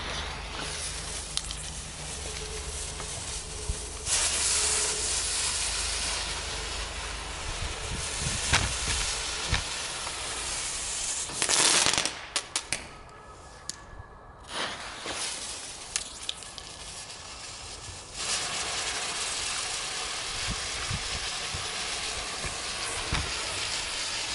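Keller 'UFO' ground spinner fireworks burning: a steady hiss of spraying sparks with scattered sharp pops. The hiss swells about four seconds in, peaks in a loud burst about halfway through, dips briefly, then settles into a steady hiss again.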